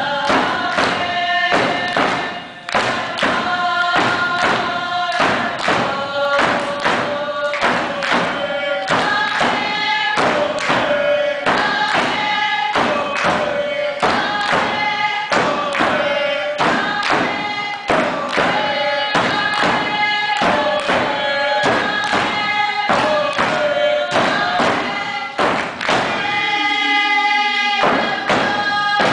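Tlingit dance song: hand-held frame drums beating a steady even pulse under a group of voices singing a chant in long held notes. Near the end the drums stop briefly while the singers hold a note, then the beat comes back.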